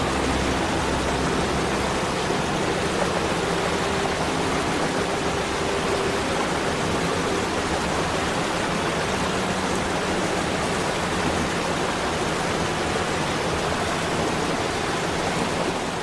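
Steady rushing of a waterfall, an even hiss of falling water with no breaks.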